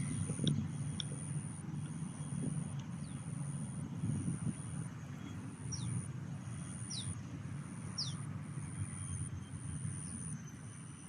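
Outdoor riverside ambience: a steady low rumble with a high, thin tone pulsing in even dashes a bit faster than once a second, and three short falling bird chirps about two-thirds of the way through.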